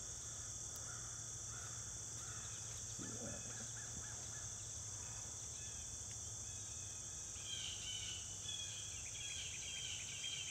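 Steady high-pitched chorus of insects such as crickets, with faint bird chirps toward the end.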